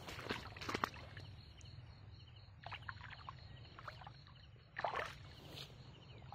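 Rubber waders stepping and sloshing through shallow water and grass: a few separate, irregular splashy steps, the loudest about five seconds in.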